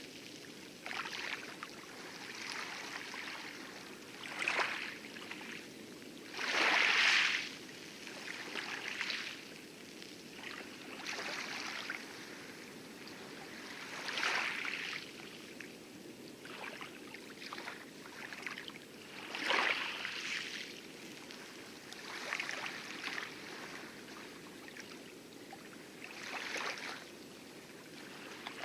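Light waves lapping and splashing on coral at the lagoon edge of an atoll, a small splash every two to three seconds, over a steady low rumble of heavy surf breaking on the outer reef.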